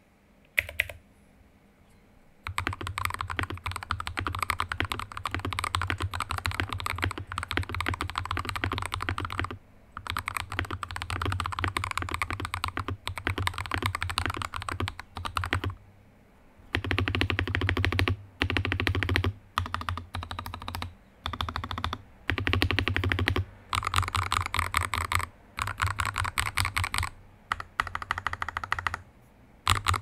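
Typing on a CiY Tester 84 mechanical keyboard with lubed KTT Wine Red linear switches and XDA keycaps: fast, continuous runs of keystrokes broken by brief pauses, after a couple of single key clacks about a second in.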